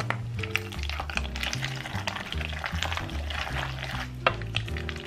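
Elbow macaroni being stirred through milk and melted cheese in a metal saucepan, a run of irregular short wet clicks and scrapes. Background music with a plodding bass line plays underneath.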